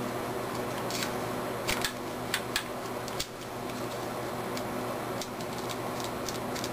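Sharp plastic clicks and clacks of a nylon tactical bipod being handled and fitted under a rifle's rail. There is a cluster of clicks between about one and three seconds in, then fainter ticks, over a steady hum.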